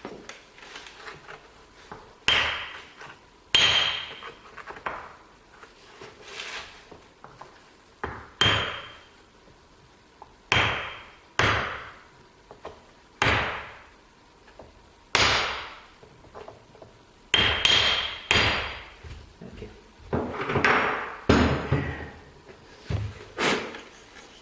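A heavy object used as a hammer striking a piece of wood held against a greased plug, driving it into the back of the apron: about fifteen blows at uneven intervals, some with a brief ringing note.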